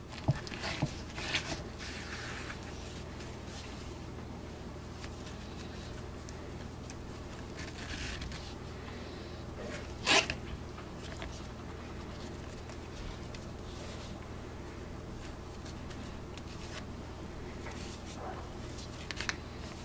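Butcher's twine being wrapped and pulled around a raw pork leg by hand: faint rustling and rubbing with small clicks, and one short sharp click about ten seconds in, over a steady low hum.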